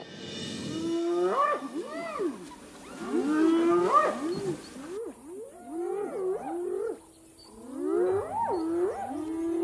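A group of spotted hyenas calling: several overlapping voices in short swooping calls that rise and fall in pitch, coming in four bouts separated by brief lulls.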